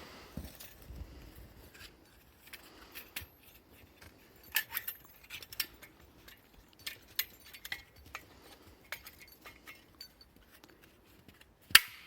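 Scattered light clinks and clicks of gear being handled, ending in one sharp, louder click near the end.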